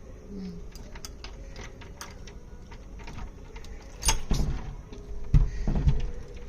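A key clicking and rattling in a jammed door lock, with a few heavy thuds from about four seconds in.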